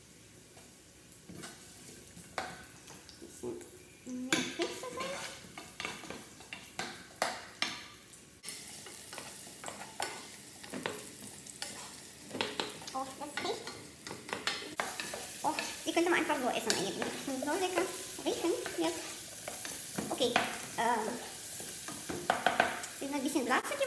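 Sliced carrots sizzling in olive oil in a saucepan while a spoon stirs them, clicking and scraping against the pot. It is quiet for the first few seconds, then the sizzle and the stirring grow louder.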